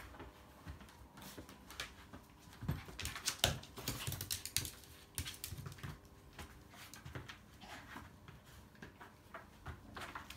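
A toy poodle and a ginger kitten play-fighting in a cardboard scratcher: scuffling, with paws and claws scratching and tapping on the cardboard and the wooden floor. There is a busy run of sharp scratches and taps from about two and a half to four and a half seconds in.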